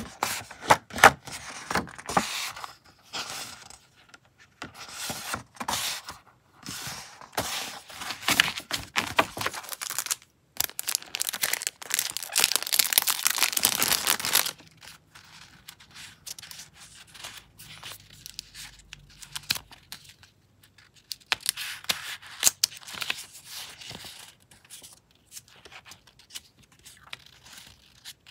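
Sheets of vintage paper ephemera (postcards, printed papers and a stack of old card tickets) being handled, shuffled and flicked through by hand: quick papery rustles and slides. About halfway through comes a few seconds of louder, continuous rustling, and near the end the tickets are fanned through with softer, scattered flicks.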